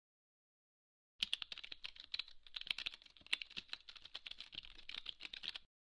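Computer keyboard typing sound effect: a quick run of key clicks that starts about a second in and stops shortly before the end.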